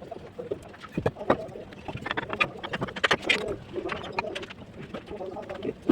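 Low cooing bird calls, repeated, mixed with scattered sharp taps.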